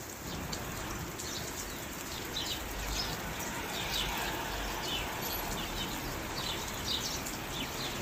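Steady rain hiss with birds chirping over it in short, quick descending notes, repeated many times.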